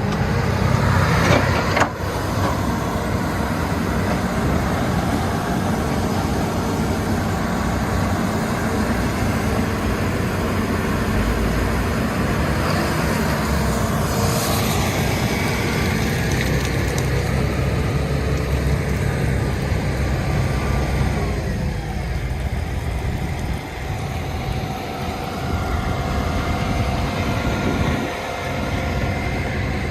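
Diesel engine of a Hitachi Zaxis 210 excavator running steadily under work, with two sharp knocks in the first two seconds.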